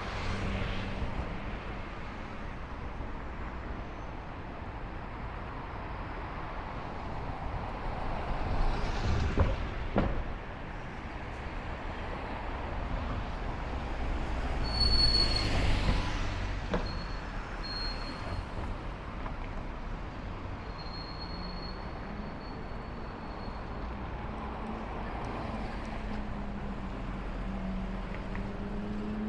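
City street traffic, with vehicles passing close by in two louder swells. A thin high whine sounds for several seconds in the middle, and an engine rises in pitch near the end.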